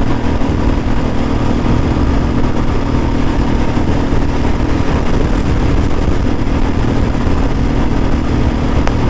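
Royal Enfield Bullet 350's single-cylinder engine running steadily at high speed in fifth gear, held at about 120 km/h near its top speed, with a constant drone.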